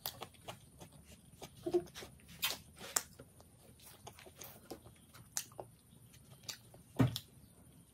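Close-miked eating sounds: chewing pizza with irregular wet mouth clicks and smacks, and fingers picking at a pizza slice on a plate. There is one louder knock near the end.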